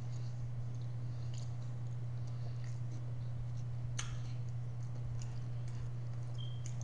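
Quiet room tone: a steady low hum with a few faint small clicks, one sharper click about four seconds in.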